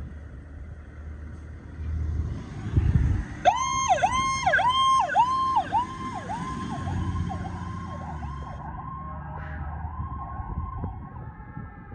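Diesel engine rumble of a 2022 Pierce Enforcer fire engine pulling out on a call. About three and a half seconds in, its electronic siren starts a fast up-and-down yelp, about one and a half sweeps a second. Later it settles into a steadier siren tone as the truck goes past.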